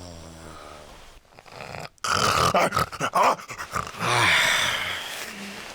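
A man snoring very loudly and raggedly. A low droning snore is followed, about two seconds in, by a sudden burst of harsh rattling snorts, then another loud, noisy breath.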